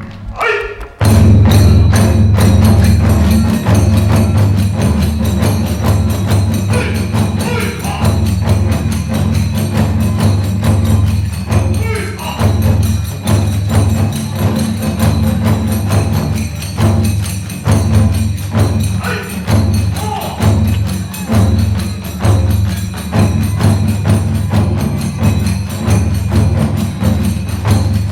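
Kagura hayashi ensemble of large and small taiko drums, brass hand cymbals (tebyōshi) and bamboo flute, playing a steady, dense beat. It breaks off briefly just after the start and strikes up again about a second in.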